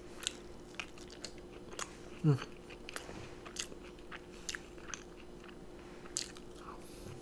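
Close-up chewing and wet mouth clicks of a person eating steak fries dipped in cheese sauce, with soft clicks every half second or so. About two seconds in there is a short falling hum from the eater.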